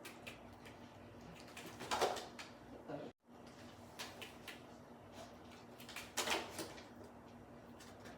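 Two short, sharp hiccups about four seconds apart, with a few fainter clicks between them; the sound cuts out completely for a moment about three seconds in.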